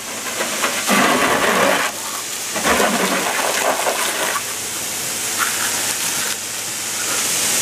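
Water spraying from a garden hose onto a pickup truck's body panels and windows: a steady hiss, with two heavier splashing stretches about one and three seconds in.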